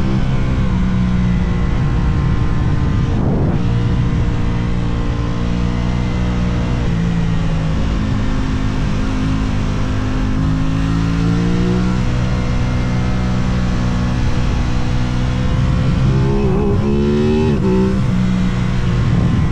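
Aprilia RS660 parallel-twin engine under way at speed, its revs shifting up and down through the corners, with a run of quick rev blips about three quarters of the way through.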